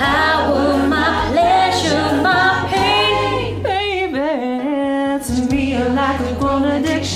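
A female solo voice singing over a choir of mostly women's voices in harmony, with long gliding notes.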